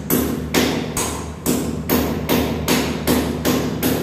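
Hammer blows on a chisel cutting into the wall along the marked outline of the aircon opening: about ten sharp, evenly paced strikes, two to three a second, each ringing briefly.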